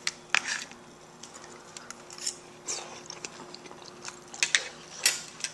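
A fork clicks against a plate twice, then a man chews a mouthful of eggs and oatmeal, with wet mouth clicks and smacks.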